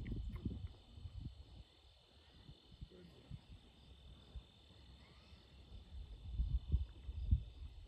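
Wind buffeting the microphone in uneven gusts, loudest at the start and again near the end. A steady high drone of insects runs underneath.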